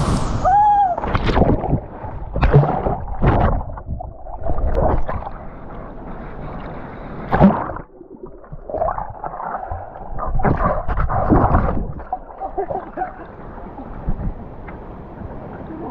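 Muffled sloshing and gurgling of water in irregular surges around an action camera in the water, dull with little treble. A brief pitched, voice-like call comes near the start.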